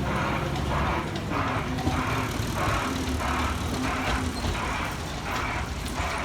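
Steam-locomotive-style chuffing from the Botchan Train, Iyo Railway's diesel-powered replica of a steam locomotive. The hissing chuffs come about two a second at an even pace.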